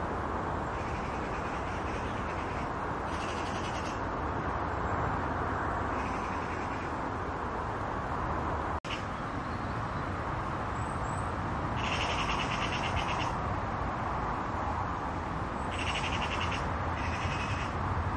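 Steady rushing background noise with short, rasping bird calls, crow-like, each about a second long, coming again and again. There is a brief break in the sound about nine seconds in.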